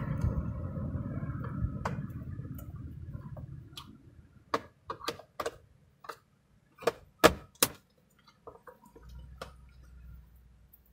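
Screwdriver clicking against the screws and plastic base of a keyboard as the screws are undone: a run of sharp, irregular clicks from about four seconds in, the loudest two close together a little after the middle. Before that, a low rumble fades out over the first few seconds.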